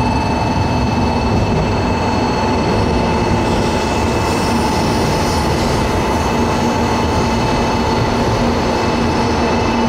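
700 series Shinkansen train moving along the station platform: a loud, even rumble with several steady whining tones that hold their pitch, and a short spell of added hiss about halfway through.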